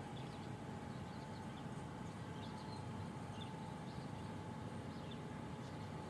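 Faint bird chirps: short, scattered high calls over a steady low background rumble and a thin steady tone.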